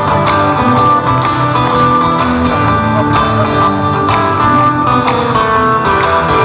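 Live rock band playing the instrumental opening of a song, with guitar to the fore.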